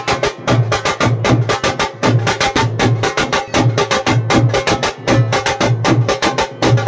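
Fast, dense drumming: rapid sharp strikes over a deep drum beat that comes in short repeated groups.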